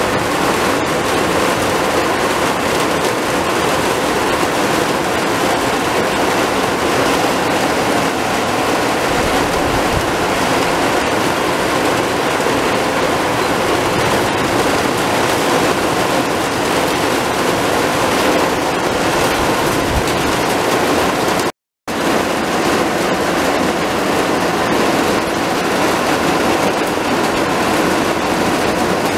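Heavy rain pouring down in a loud, steady hiss. The sound drops out for a split second about two-thirds of the way through, then the downpour carries on.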